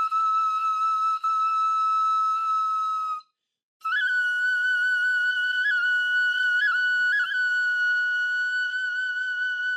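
Replica of the 9,000-year-old Jiahu crane-bone flute being played: a long held note, a short break about three seconds in, then a slightly higher held note decorated with a few quick upward flicks.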